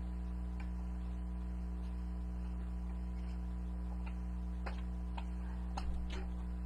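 A steady low hum with a scattering of faint clicks and ticks, most of them between about four and six seconds in.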